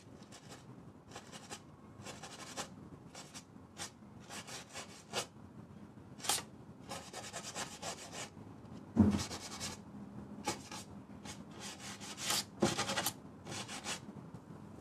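Steel wool scratching across an oil-painted aluminium panel in short, irregular strokes, scraping back into the paint layer. A louder stroke with a low knock comes about nine seconds in.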